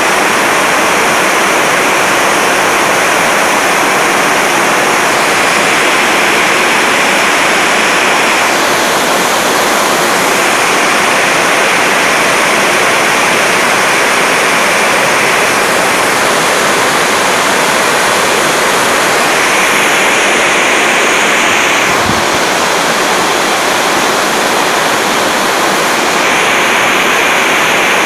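Loud, steady rushing noise with no distinct events, its tone shifting slightly every few seconds.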